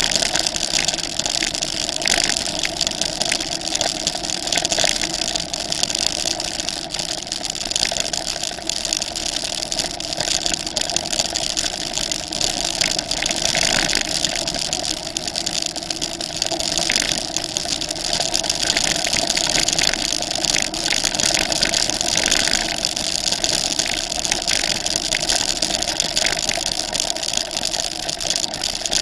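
Steady running noise of a ride along a gravel track, with tyres crunching over the stones and a continuous hiss and rattle picked up through the handlebars.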